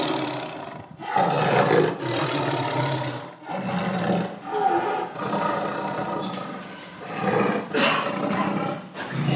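Tiger roaring in several long, rough calls, one after another with short breaks.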